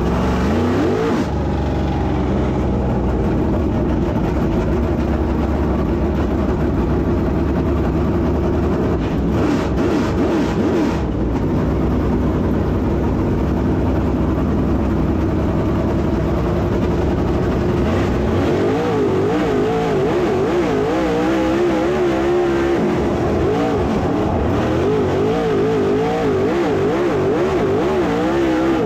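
Dirt late model race car engine running hard on a dirt track, its pitch rising and falling over and over as the throttle is worked on and off.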